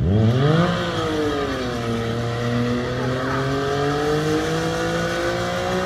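Sport motorcycle engine revved hard in a burnout, its rear tyre spinning on asphalt. The pitch shoots up in the first second, sags a little, then holds high and slowly climbs.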